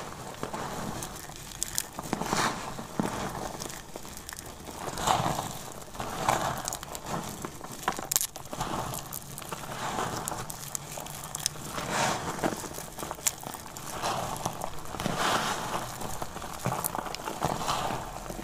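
Dry, crumbled soap pieces crushed and rubbed between the fingers: a crisp crunching and crackling that swells with each squeeze of the hands, every second or two.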